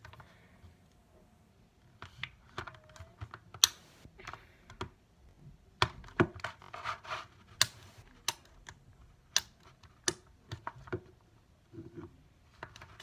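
Clear slime being squished and stretched by hand, making irregular sharp clicks and wet pops that begin about two seconds in.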